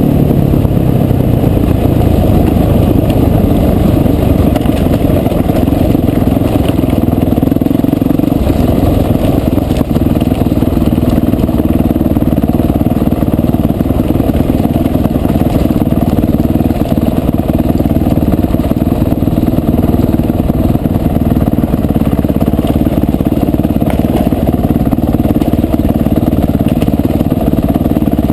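Dirt bike engine running at a steady pace under way on a rough dirt trail, with no large revs.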